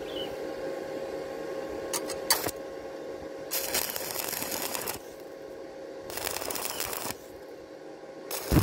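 Stick welding with a 2.6 mm E6013 electrode at 75 amps DCEP: the arc is struck with a few clicks, then crackles in bursts of about a second each, broken off and restarted, with short gaps between.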